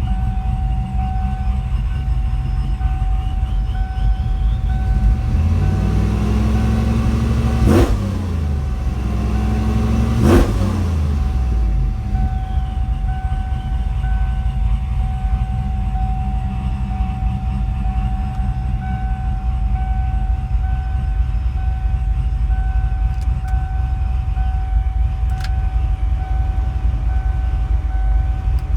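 Supercharged Ford F-150 pickup engine idling with a steady whine over it. It is revved up twice, peaking about eight seconds in and again two and a half seconds later, then drops back to idle.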